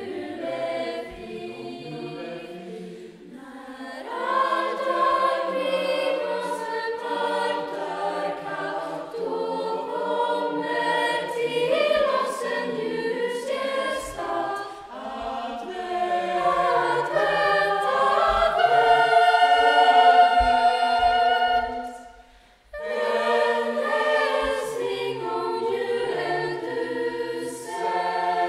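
A Lucia choir of young female voices singing together in held, flowing lines. It starts softer, swells louder a few seconds in, and breaks off briefly about three-quarters of the way through before the singing resumes.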